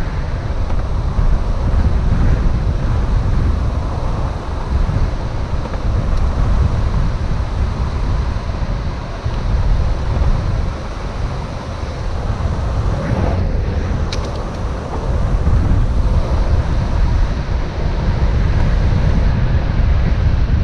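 Wind buffeting a GoPro's microphone at speed on a fast downhill run: a loud, steady rush with heavy low rumble.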